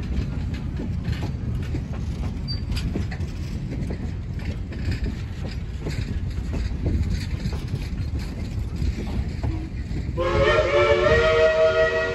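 Passenger coaches rolling past close by: a steady low rumble with wheel clicks over the rail joints. About ten seconds in, the train's multi-note horn starts up loudly as a held chord.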